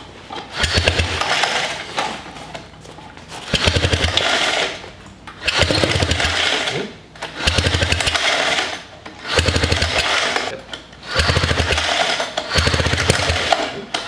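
Sachs single-rotor Wankel engine being cranked over in repeated bursts, about seven attempts roughly two seconds apart, each a rapid chattering run that stops short without the engine staying running.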